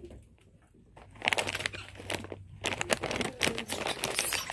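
Rapid crinkling and crackling of a plastic snack bag being handled, starting about a second in after a short quiet moment.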